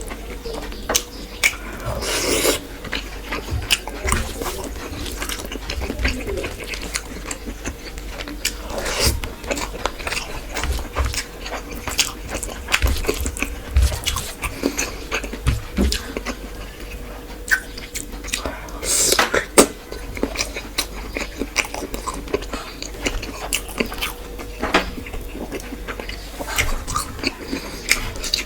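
Close-up eating sounds: a person chewing rice with fish and egg curry, with many small wet mouth clicks and smacks throughout, and a couple of longer, louder noises about two seconds in and a little past the middle.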